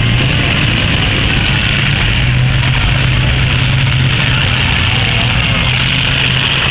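Demolition derby cars' engines running together in a steady, loud drone.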